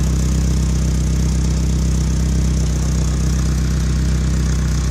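Toyota truck engine idling steadily, running through an exhaust that still leaks at the catalytic converter despite a patch of exhaust wrap and screws.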